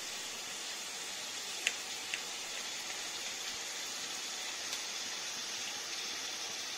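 A steady, even hiss, with two short light clicks close together a little under two seconds in.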